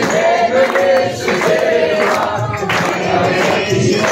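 A Hindu aarti sung by a group of voices together, in long held, wavering notes.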